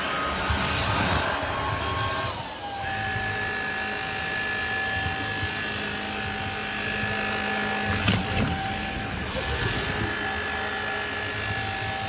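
Cordless stick vacuum cleaner running with a steady motor whine. Its pitch is higher for the first two seconds or so and then drops back to a lower steady note. A sharp knock comes about eight seconds in.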